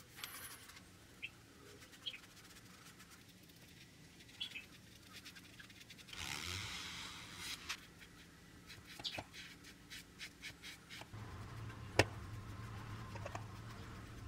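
Faint hand-work sounds of painter's tape being pressed onto a wooden rocker piece and stain being dabbed on with a foam brush: soft rubbing and scattered small clicks, with a longer scratchy rustle about six seconds in and one sharp tap near the end.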